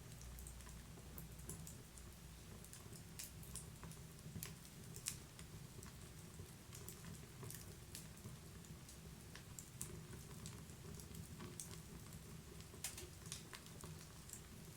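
Wood fire crackling faintly: irregular sharp pops and snaps over a low steady rumble, with one louder pop about five seconds in.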